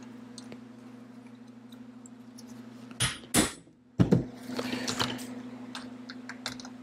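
Hand impact driver working loose the screws on a Honda CB750 carburetor bank: light metallic clicks and scrapes of the tool bit in the screw heads, with louder knocks about three and four seconds in, over a steady low hum.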